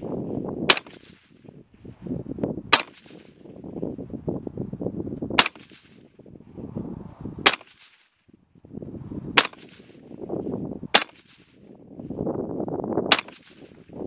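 Suppressed Glock 21 .45 ACP pistol fired seven times, a slow string of single shots about two seconds apart, each a sharp, muffled crack with a short fading tail.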